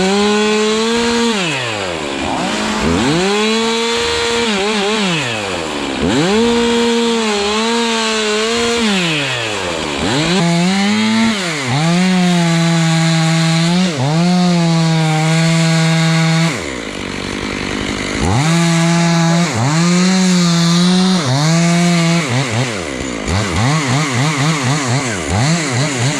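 Chainsaw revving up and down over and over, held high for a few seconds at a time as it cuts. About 17 seconds in it drops back briefly. Near the end it runs in quick uneven pulses, about three a second.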